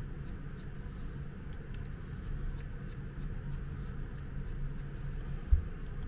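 Screwdriver turning a screw into a plastic electrical plug: faint small clicks and scraping. A single low thump about five and a half seconds in.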